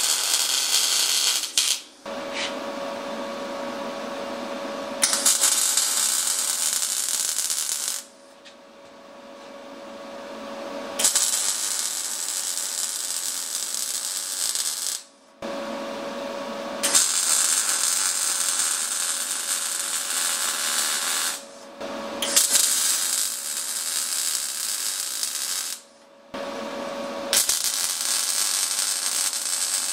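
MIG welder arc crackling through several welding runs, each a few seconds long, with short breaks between them as the gun trigger is released.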